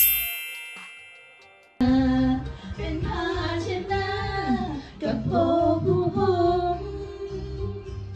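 A bright chime rings out and fades away over about two seconds. Then background music starts: a pop song with a woman singing.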